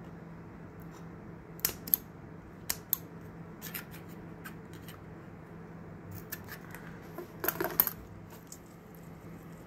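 Steel scissors snipping at a loose strip of reflective tape on a bicycle rim: a handful of sharp metallic snips and clicks over the first few seconds, then another short cluster near the end.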